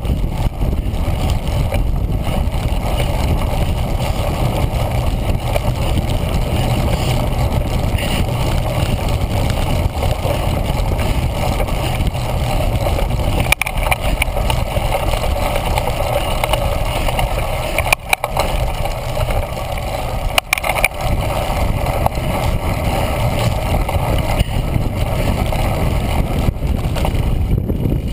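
Steady loud wind rumble and riding noise from a cyclocross bike ridden fast over grass, picked up by a GoPro Hero 1 in its housing; it dips briefly a few times.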